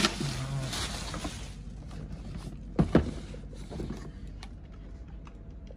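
Bubble wrap rustling and crinkling as it is pulled off a cardboard box, dying away about a second and a half in. Two sharp knocks of the box being handled come near the middle, followed by a few light taps.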